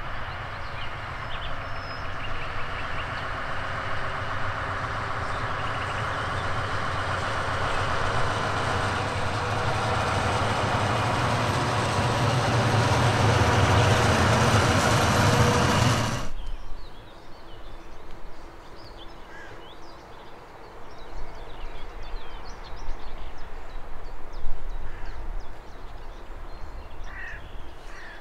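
A train passing on the track, its rail and wheel noise building to a peak and then cutting off abruptly about sixteen seconds in. Afterwards a low rumble and faint bird calls, with a few calls near the end.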